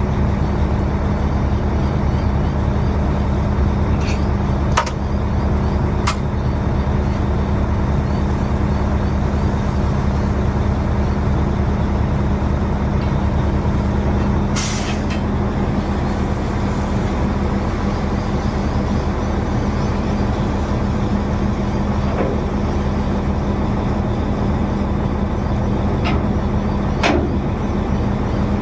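Heavy truck engine running steadily, with a short burst of air hiss about halfway through, typical of an air-brake release, and a few light clicks.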